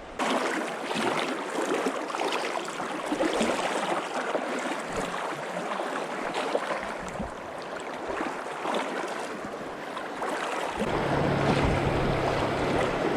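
Mountain river water rushing steadily over rocks. A low rumble joins about eleven seconds in.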